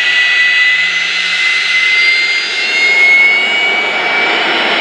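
GE J79 turbojet engine running at high power: a steady, loud jet roar with a compressor whine that climbs slightly in pitch over a few seconds.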